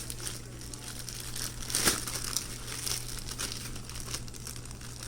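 Plastic packaging crinkling and rustling in irregular bursts as it is handled, with one sharper crinkle a little under two seconds in.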